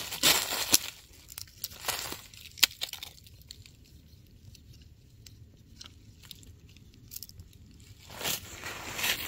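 Handling noise from a carabiner keychain thermometer being hooked onto a thin tree branch: twigs rustling and sharp metal clicks in the first few seconds, a quiet stretch, then more rustling near the end.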